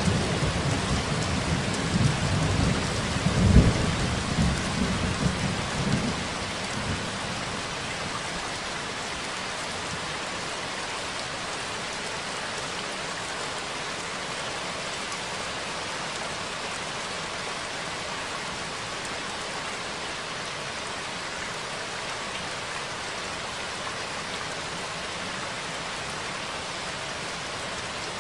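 Steady rain with a low rumble of thunder over the first several seconds. The thunder is loudest about three and a half seconds in and fades out by about seven seconds, leaving only the even patter of the rain.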